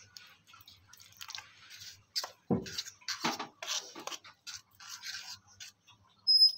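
Fork beating a thick gram-flour batter in a metal bowl: wet, irregular scraping and slapping strokes. Near the end comes a brief high metallic ring, the loudest sound.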